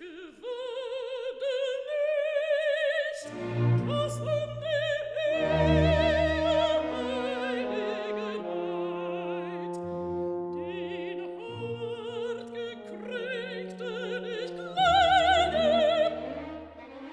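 Operatic female voice singing with wide vibrato over an orchestra. Low sustained orchestral notes come in about three seconds in, and the voice and orchestra swell loudest near the end.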